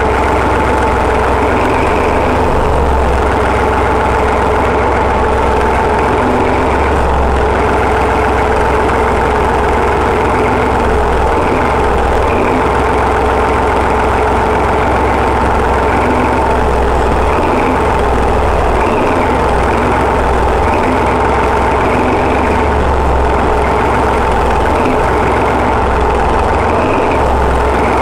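Class 14 diesel locomotive's Paxman 6YJXL diesel engine running steadily at idle. It is a freshly installed replacement engine on its first run.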